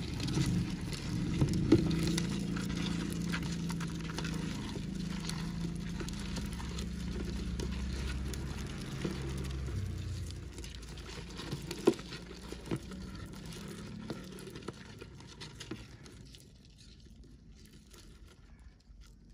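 Rhinoceros beetles crawling over each other in a plastic container: a constant irregular clicking and scratching of clawed legs and hard shells on plastic, with a few sharper clicks. A low hum sits underneath for the first half and fades out about halfway through.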